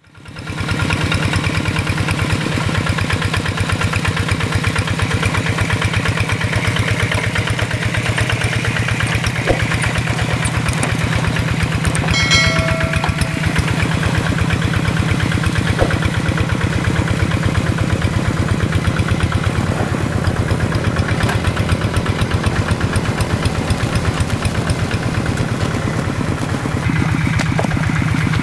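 Single-cylinder Kubota diesel engine of a walking hand tractor running steadily while the tractor works through a flooded rice paddy, with rapid, even firing beats. A brief high call sounds once about midway.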